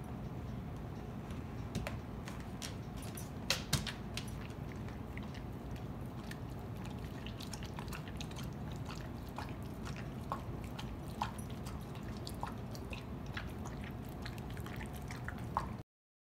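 Dog eating raw ground-meat dog food from a glass bowl: wet smacking and chewing with scattered sharp clicks over a steady low hum. It cuts off suddenly near the end.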